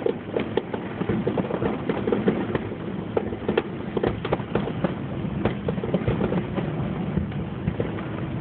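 Fireworks grand finale: aerial shells bursting in a rapid, irregular string of bangs and crackles, several a second, with no let-up.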